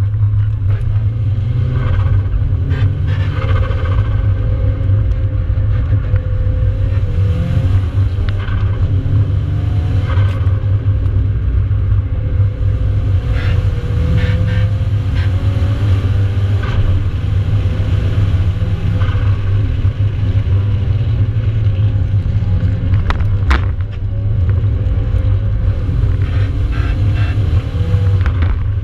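Nissan 200SX engine and road noise heard from inside the cabin on a circuit lap: a heavy, steady low rumble under an engine note that rises and falls repeatedly as the car accelerates and eases off for corners. A few short sharp clicks cut through, the loudest about two thirds of the way in.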